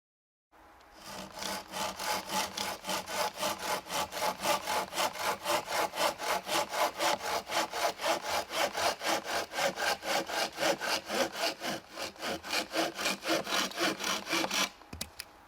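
A hand saw cutting through dry wood in quick, even back-and-forth strokes, about four a second. The sawing stops shortly before the end, followed by a few light clicks.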